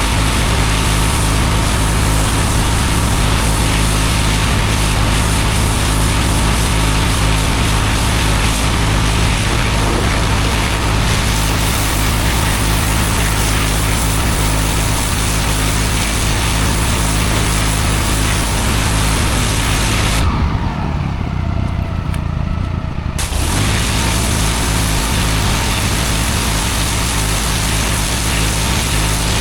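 Engine-driven pressure washer running steadily, its high-pressure water jet hissing loudly against block paving. About two-thirds of the way through, the spray stops for roughly three seconds, leaving only the engine running, then starts again.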